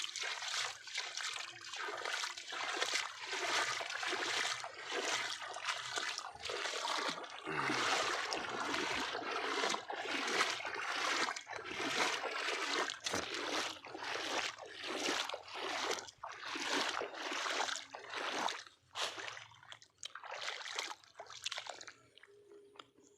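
Shallow floodwater splashing and sloshing in quick, irregular bursts that thin out and grow quieter over the last few seconds.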